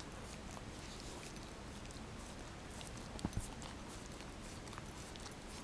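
Small long-haired dog licking bare skin: faint, wet clicking and smacking of its tongue, with two soft knocks a little over three seconds in.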